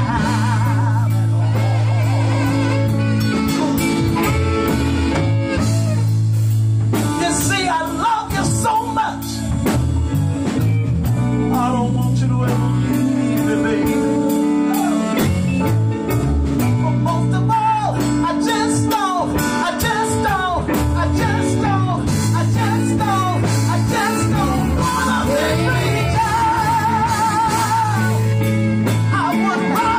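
Live band playing: electric bass and electric guitar over a drum kit keeping a steady beat, with vocalists singing with a wide vibrato.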